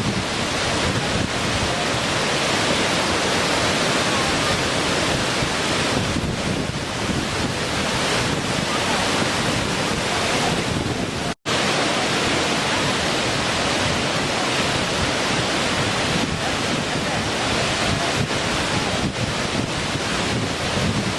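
Small waterfall: water falling and splashing in a steady, even rush. The sound cuts out for a split second about halfway through.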